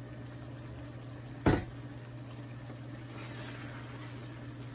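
Chicken curry gravy simmering and bubbling in a frying pan, with one sharp, loud clank about one and a half seconds in as the glass pot lid is set down; a wooden spoon then stirs through the chicken pieces.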